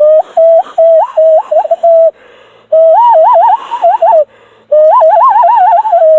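Cupped-hand whistle blown in bird-like calls: a steady hooting note with quick upward flips, then, after a short pause about two seconds in, two warbling trilled phrases separated by another brief pause.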